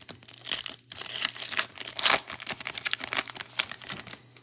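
Crinkling and tearing of a foil trading-card pack wrapper being handled and ripped open, loudest about two seconds in.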